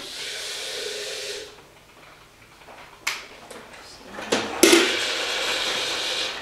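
Steam hissing that stops about a second and a half in, then a few clicks, a clink of the glass kettle, and hot water poured from the glass kettle in a steady splashing stream for the last two seconds, for tea.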